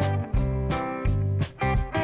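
Background music: plucked guitar notes over bass and a steady beat.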